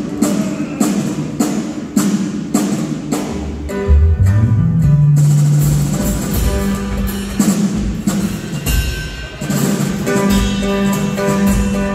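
A live band's instruments sound-checking. A drum kit beats steadily for the first few seconds, then bass guitar notes climb step by step about four seconds in and hold, and held notes from the other instruments follow.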